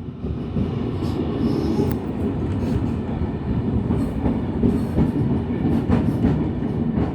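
Sydney Trains V set, an electric double-deck intercity train, running along the track: a steady rumble with irregular sharp clicks from its wheels passing over rail joints.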